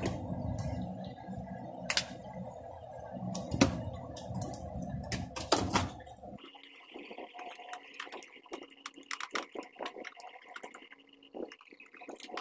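Hands working at a canister vacuum cleaner's plastic housing to open it: rubbing and scraping with a few sharp plastic clicks. About six seconds in, the rubbing stops abruptly and only fainter scattered clicks and taps go on.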